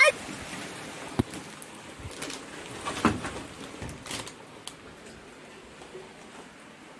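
Heavy monsoon rain falling steadily with an even hiss, with a few short knocks about one, three and four seconds in. The hiss softens after about four seconds.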